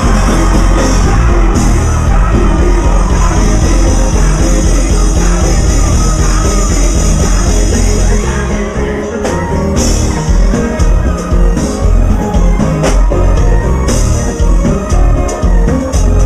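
Loud live band music from keyboard and electric bass, with a male singer on the microphone. The beat becomes more pulsing in the second half.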